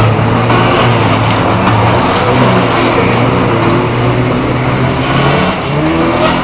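Loud running of the engines of banger-racing cars on the track, with a steady low drone. One engine revs up in pitch about five and a half seconds in.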